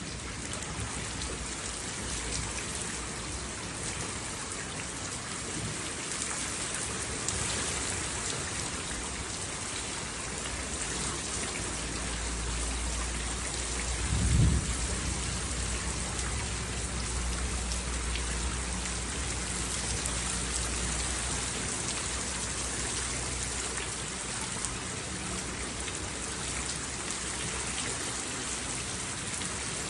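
Steady heavy rain pattering on a surface. Thunder rumbles low from about ten seconds in, with a loud crack about halfway through, then fades away before the end.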